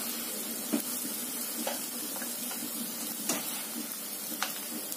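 Sausage slices sizzling in oil in a nonstick frying pan, with a spatula scraping through the pan and clicking against it four or five times as the slices are scooped out.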